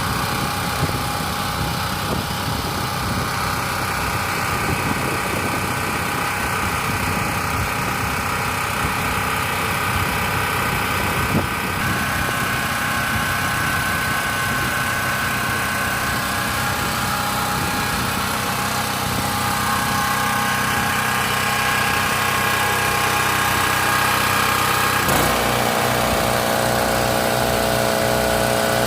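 Open-frame portable generator running steadily. About 25 seconds in, an electric air compressor plugged into it starts up and runs with a regular pulsing, loading the generator.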